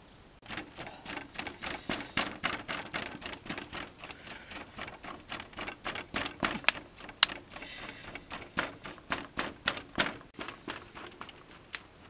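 A stone pestle pounding in a black stone mortar, with quick, steady strikes of about three a second that start about half a second in.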